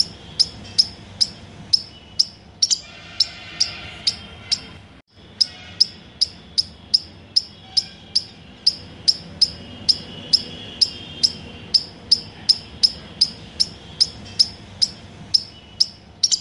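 A short, high chirp repeated very steadily, a little more than twice a second, over faint birdsong. The chirping breaks off briefly about five seconds in.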